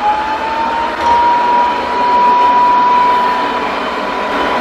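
Robot vacuum's suction fan running: a steady high whine over a rush of air, the whine finishing its rise in pitch about a second in as the motor comes up to speed.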